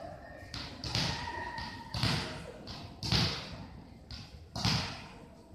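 A volleyball being struck during a rally: four sharp hits about a second apart, with a fainter one just before, each echoing under the court's high roof.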